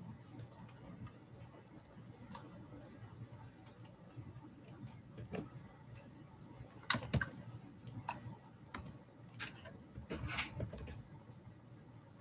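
Irregular clicking of keys being typed on a computer keyboard, in uneven runs, loudest about seven seconds in.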